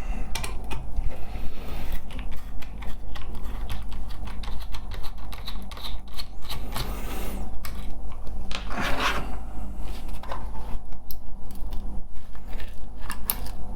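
Hands and a small hand tool working on a car door lock mechanism as it is taken apart: irregular clicks, ticks and short scrapes of small plastic and metal parts, with one longer scrape about nine seconds in, over a steady low hum.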